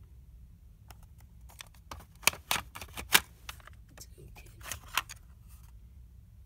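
Plastic cassette tape cases clicking and clacking as they are handled and pulled from a rack: a string of sharp clicks, the loudest a little after two and three seconds in.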